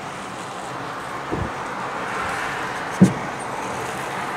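Distant fireworks shells bursting with dull booms, a faint one about a second and a half in and a louder one about three seconds in, over a steady background hiss.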